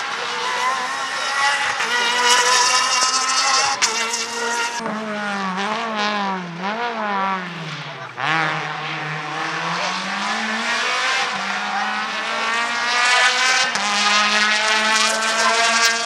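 A rally car's engine at high revs. Its pitch drops in several quick steps with short blips around the middle, like downshifts, then rises steadily again as it accelerates away.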